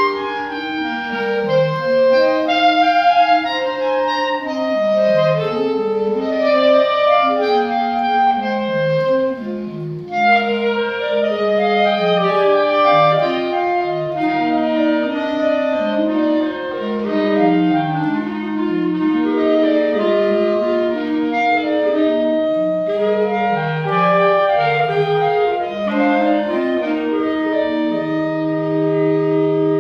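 Clarinet choir of five players performing a piece in several parts. The parts move in harmony, and the piece ends on a long held chord in the last couple of seconds.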